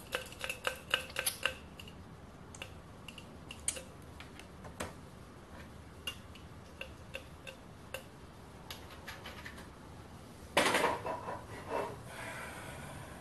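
Metal pump oil can clicking and clinking against the headstock oil cups of a Schaublin lathe as oil is pumped in, in quick ringing metallic ticks. A louder metallic clatter comes near the end.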